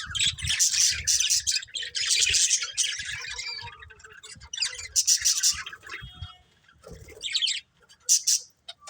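Budgerigars chirping in rapid, high-pitched bouts, with two short pauses between bouts.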